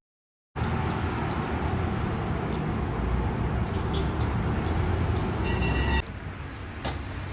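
Steady low rumble and hiss of background noise that drops to a quieter hiss about six seconds in, with a short high tone just before the drop and a single sharp click near the end.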